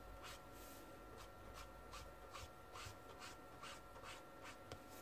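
Faint scratching of a marker flicked across brown paper in short, quick strokes, about two or three a second, inking fur lines.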